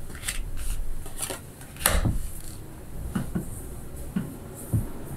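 Scattered light taps, clicks and rustles of a tarot deck being handled and set down, with one sharper tap about two seconds in.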